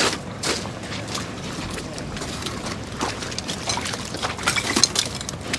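Loose chunks of lake ice knocking and clinking together with water sloshing, a scatter of sharp clicks that grows busier about four seconds in.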